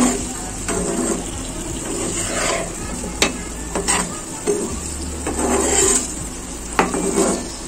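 Whole boiled potatoes being stirred into spice paste in a frying pan over medium heat: a spatula scrapes and knocks against the pan several times over a steady sizzle of oil.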